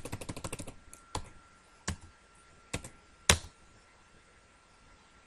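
Computer keyboard typing: a quick run of about ten keystrokes in the first second, then four or five single key presses spaced out, the last and loudest about three seconds in. This is commands being keyed into the CAD command line.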